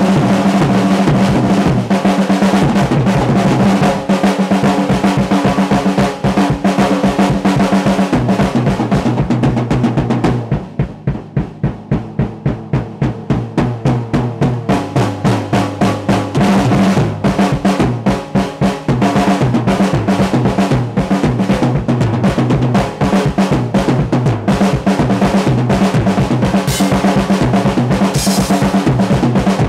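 Acoustic drum kit played in a fast solo: rapid strokes on the drums and toms under a wash of cymbals. For several seconds near the middle the cymbals drop out and separate drum strokes come through at about four a second, then the full kit returns with cymbal crashes near the end.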